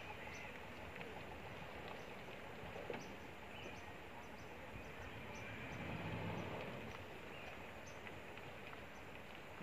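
Distant Mitsubishi Triton pickup engine working its way down a steep, slippery mud slope, swelling briefly about six seconds in, over a steady outdoor hiss with short high chirps scattered throughout.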